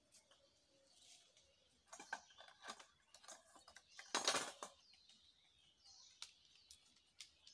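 Hands working in a stainless steel bowl of water: scattered light clinks and scrapes of metal, with a louder noisy rush lasting about half a second about four seconds in.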